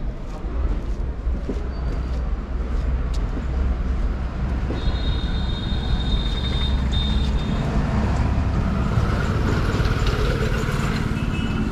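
Low rumble of a vehicle engine running close by, a little louder in the second half, with a thin high whine lasting about three seconds in the middle.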